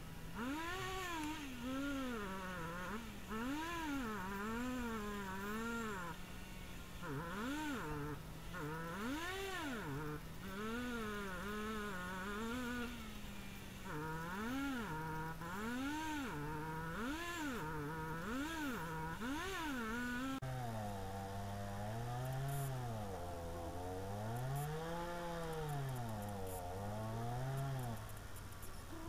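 Petrol chainsaw cutting through a fallen tree, its pitch rising again and again as the engine revs and dropping as the chain bites into the wood. About two-thirds of the way through, the pitch drops abruptly and keeps swinging up and down at the lower pitch.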